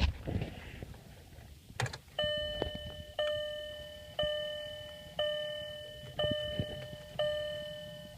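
Volkswagen dashboard warning chime sounding about once a second, six bell-like tones each fading before the next, with a click just before the chimes begin as the ignition key is worked.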